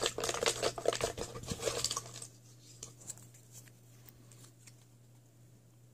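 A hand rummaging among folded paper slips in a container, a dense rustling for about two seconds. It is followed by faint crinkles as one slip is unfolded.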